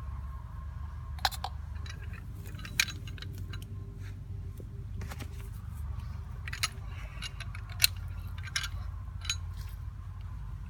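Scattered sharp metallic clicks and clinks from metal parts being handled, about eight of them spread unevenly, over a steady low rumble.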